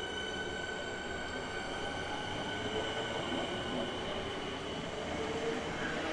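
Suburban electric multiple unit moving along the platform, with a steady high-pitched whine over the continuous rumble of its wheels on the track.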